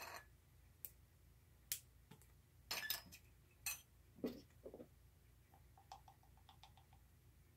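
Faint clicks and clinks of a small glass spice jar and a metal measuring spoon being handled: the jar's lid twisting off and the spoon knocking against the jar, with a quick run of light ticks about two-thirds of the way through.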